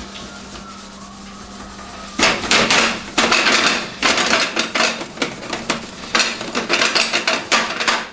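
A sponge scrubbing a gas stovetop's burner pan in quick back-and-forth strokes, about two a second, starting about two seconds in. A faint steady hum runs underneath.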